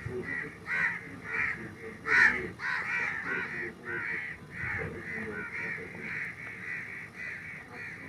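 Black kite giving a steady run of short, sharp calls, about three a second, with the loudest one about two seconds in: the distress calls of a frightened, injured kite being caught by hand.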